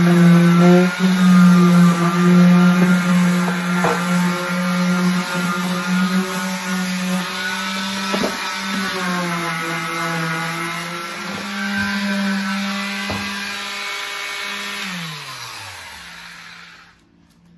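Small corded electric sander running steadily with 220-grit paper, scuffing the plastic shell of a cooler, with a few sharp knocks as it bumps the surface. About fifteen seconds in it is switched off and its hum falls in pitch as it winds down.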